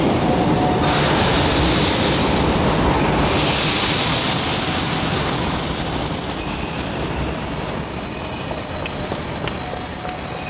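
Diesel express train pulling into a station on curved track, its wheels squealing: a high, steady squeal over the train's rumble, growing strong about three seconds in.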